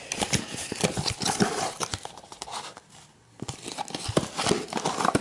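Cardboard packaging of a trading-card deck being handled, its inner cardboard piece bent down: a quick run of crackles, taps and rustles, with a short lull about three seconds in.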